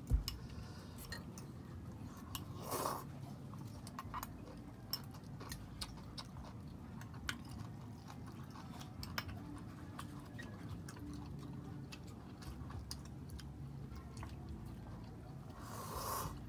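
A pot of ramyun simmering on a portable gas stove, with small irregular bubbling pops over a low steady rumble. There are two brief louder rushes of noise, one about three seconds in and one near the end.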